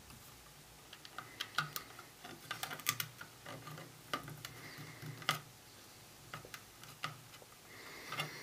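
Small screws and 3D-printed plastic parts being handled, a screw being set into a hole in the plastic tray: faint, irregular light clicks and taps, most of them between about one and five and a half seconds in.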